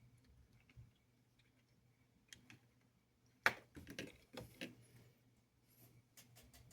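Light clicks and taps of small parts being handled on a workbench, with a quick cluster of sharper clicks about three and a half seconds in.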